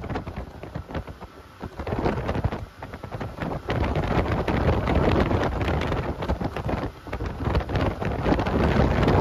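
Wind buffeting the microphone on a moving boat: a loud, gusty rushing noise that drops away in brief lulls a few times.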